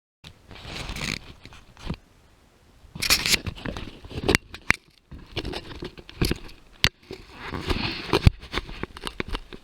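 A hiker's footsteps and gear close to the mic, heard as irregular scraping and crunching with sharp clicks. It starts suddenly out of dead silence.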